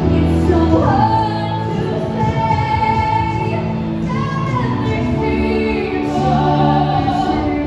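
A woman singing a show-tune duet live into a microphone, holding long notes, over music accompaniment through a PA.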